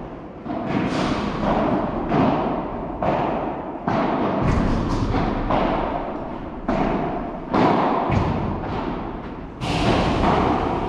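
Padel balls being struck with solid paddle rackets: a string of sharp pops, about one a second, each ringing out in a large echoing hall.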